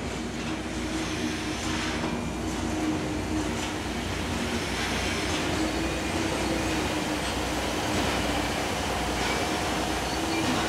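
Pt47 steam locomotive and its passenger coaches rolling slowly past at close range as the train arrives. A steady rumble grows slightly louder, with a wavering tone and faint clicks of the wheels over the rail joints.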